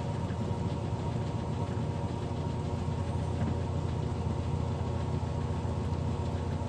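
Metal lathe running steadily with an even machine hum while a facing cut is fed by hand.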